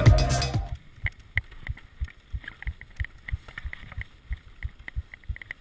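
Background music cutting off within the first second. After that, a mountain bike rolls along a paved road: irregular low thumps and light clicks several times a second, with some wind noise.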